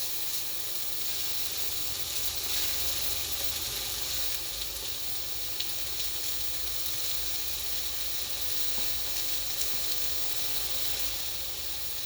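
A stir fry of noodles, mushrooms and peppers sizzling steadily in an oiled frying pan, with a few sharp ticks.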